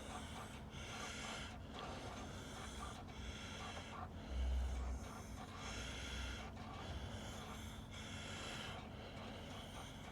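A man breathing heavily in and out, close to the microphone, about one breath a second, with a low bump about four seconds in.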